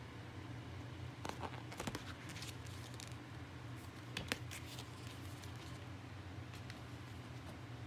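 Paper and cardboard being handled: light rustles and a few short taps and clicks as a book and card sleeves are moved, the sharpest click about four seconds in. A faint, steady low hum runs underneath.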